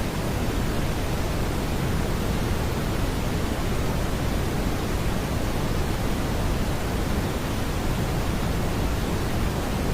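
Steady synthetic brown noise: an even, unbroken rushing hiss weighted toward the low end, with no tones or changes.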